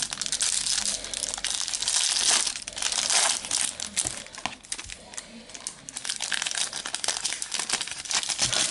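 Foil trading-card packet being opened by hand, its wrapper crinkling and crackling in uneven bursts, loudest about two to three seconds in.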